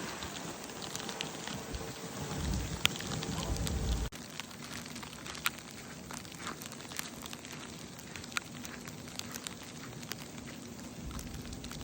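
Snowstorm precipitation falling on surfaces: a steady hiss with scattered small ticks. A low rumble under it stops abruptly about four seconds in.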